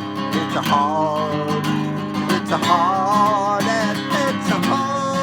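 Strummed acoustic guitar under a singer holding long, wavering notes.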